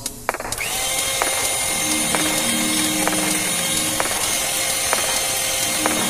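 Electric hand mixer beating egg whites in a glass bowl, switching on about half a second in and running steadily with a motor whine.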